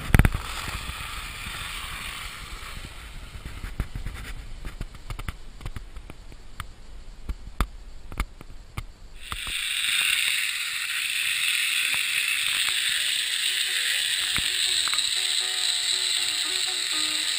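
Bicycle ridden over firm, hard-frozen snow. First a low rumble with scattered knocks and clicks, then from about nine seconds a steady hiss of tyres rolling.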